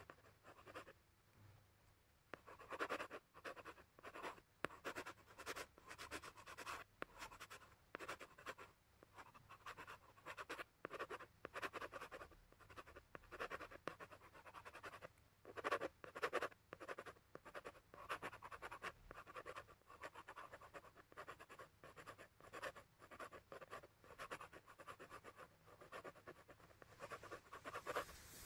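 Coloured pencil scratching on paper in quick back-and-forth shading strokes, starting about two and a half seconds in.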